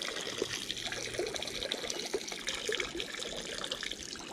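A person urinating into the reservoir water, a steady splashing trickle.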